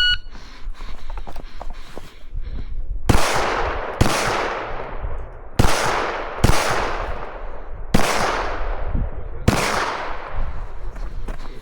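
Six pistol shots fired in pairs and singles, about a second or a second and a half apart, each followed by a long fading echo.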